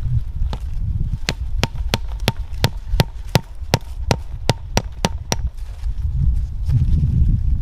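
A hatchet's poll hammering a tarp stake into the ground: about fifteen quick, even taps, roughly three a second, each with a faint ring, then stopping.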